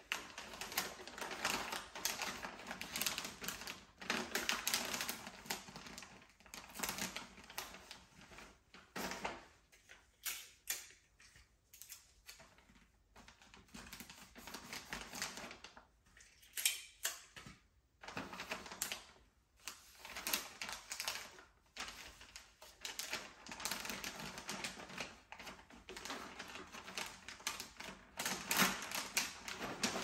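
Gift-wrapping paper being handled and folded, crinkling and crackling in dense irregular bursts, with a sparser stretch in the middle.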